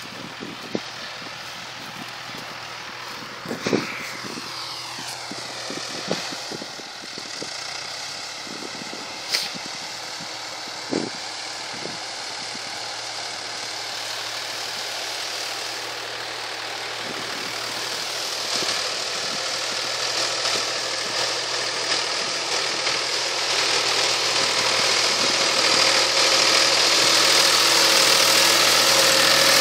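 Diesel farm tractor engine running under load while ploughing wet paddy soil, growing steadily louder as the tractor comes close. A few sharp knocks stand out in the first half.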